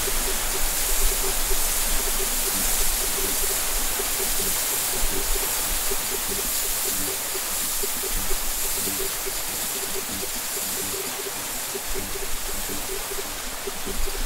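Waterfall rushing: a steady, even sound of falling water.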